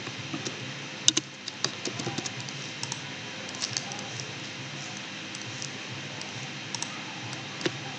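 Computer keyboard keys and mouse buttons clicking at an irregular pace, thickest in the first few seconds and sparser after, over a faint steady hum.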